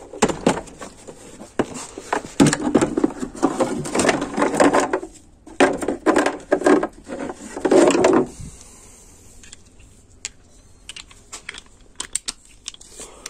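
A torque wrench being taken out of its hard plastic case: clattering and knocking of the case and wrench as they are handled. About eight seconds in it turns quieter, with scattered light clicks as the wrench is handled.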